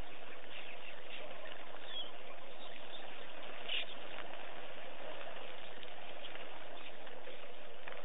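Steady outdoor ambient hiss with a couple of brief, high bird chirps, about two seconds and just under four seconds in.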